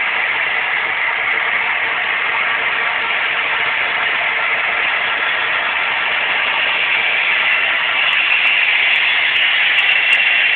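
Model train with diesel locomotives running along the track, a steady whirring rumble that grows a little louder about eight seconds in as the train nears.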